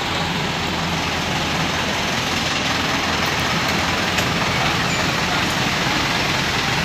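A large coach bus running at idle close by, a steady engine rumble and hiss, with faint voices.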